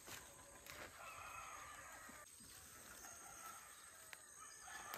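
A rooster crowing faintly: one drawn-out call about a second in and a shorter one near the end, with a few light clicks.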